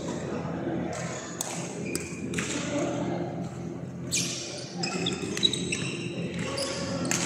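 Badminton play in a large hall: a string of sharp racket hits on a shuttlecock at irregular intervals, with short shoe squeaks on the court floor, all echoing in the hall.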